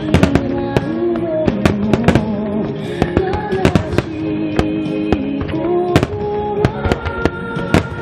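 Aerial firework shells bursting in quick succession, many sharp bangs a second, over music with a sustained melody.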